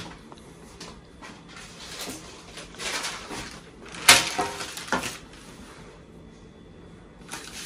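Handling a metal baking tray while laying a strip of puff pastry on it: soft rustling, then a sharp knock of the tray about four seconds in and a lighter one a second later.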